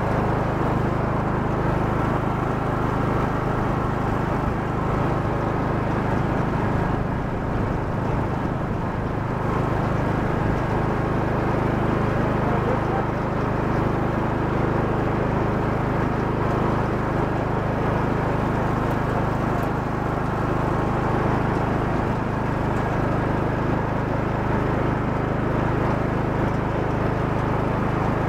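Riding lawn mower's engine running steadily as the mower drives across the lawn, a constant hum with no change in speed.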